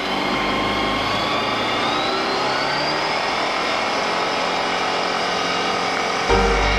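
Bristell light aircraft's engine and propeller heard from inside the cockpit, rising in pitch as the throttle is opened for the takeoff roll, then running steady. Background music comes in just before the end.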